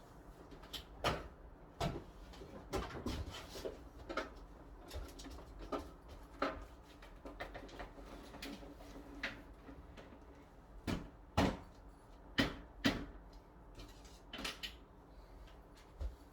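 Irregular clicks, knocks and clunks of hard parts being handled while a side-by-side refrigerator is worked on, with a few sharper knocks about eleven to thirteen seconds in, over a low steady hum.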